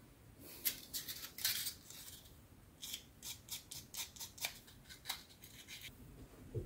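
A quick run of short, dry scraping strokes of a hand tool on plastic kit parts, about three a second, with a brief pause near the middle.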